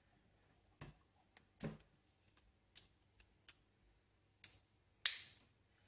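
Sharp metal clicks from a pre-1950 Webley Junior .177 air pistol being handled and loaded with a pellet, about six separate clicks, the loudest about five seconds in.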